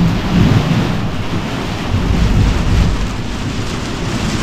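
Heavy thunderstorm: pouring rain and wind with a low, rolling rumble of thunder.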